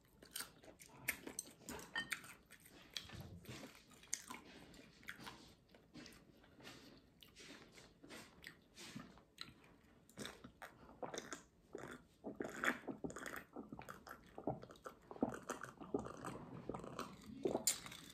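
Close-up mouth sounds of a person eating: chewing, biting and lip smacks over fried boiled eggs and noodles, with a drink from a glass of iced tea about halfway through.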